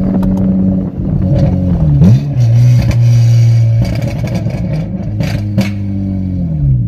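Loud exhaust of a 2009 Honda Accord V6 coupe's 3.5-litre V6, straight-piped through an electric cutout, heard from inside the cabin as the car drives. The engine note dips and jumps about two seconds in, holds a deeper steady drone for a while, and falls away near the end, with a few sharp clicks along the way.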